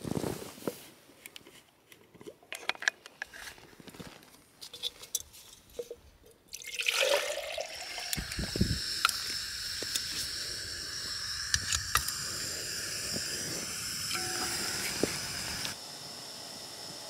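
A few seconds of scattered clicks and clinks from handling a gas canister camping stove and its pot. About six and a half seconds in, the stove's burner lights and gives a steady hiss, which drops in level near the end.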